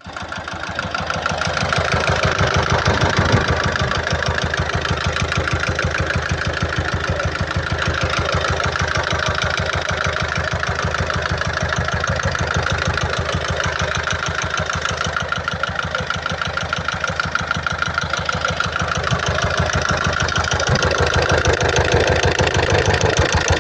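Peugeot Partner's 1.6 HDi four-cylinder turbodiesel idling with a steady, fast pulse and a knock, running with its oil level low; the knock went away once the oil was filled to full.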